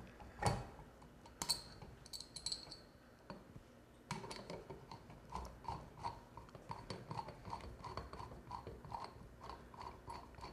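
Phillips screwdriver turning the mounting screws out of a porcelain ceiling light fixture: faint clicks at first, then from about four seconds in a regular run of small squeaky ticks, about three a second, as the screw is backed out.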